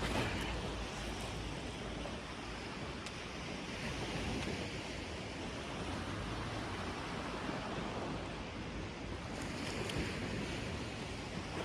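Steady wash of sea surf breaking on the beach, with some wind on the microphone and a few faint ticks.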